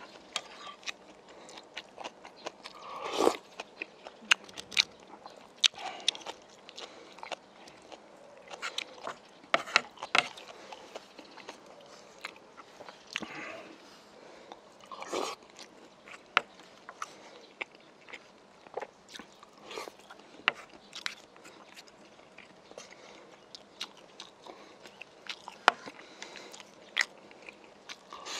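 Close-up eating sounds: chewing and wet mouth smacks as grilled white croaker and rice are eaten, with a few short slurps from a spoon of stew and many sharp little clicks from the spoon and chopsticks.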